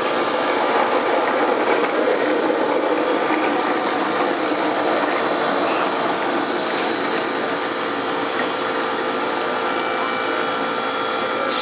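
Small homemade jet engine running at a steady speed: a loud rushing noise with a steady whine over it.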